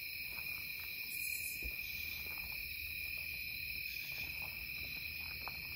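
Steady night chorus of crickets and other insects, several unbroken high-pitched trills layered together, with a few faint ticks.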